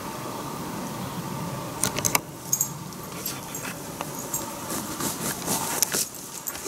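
Footsteps pushing through forest undergrowth: twigs and brush crackle and snap irregularly from about two seconds in, over a steady engine hum from an idling van.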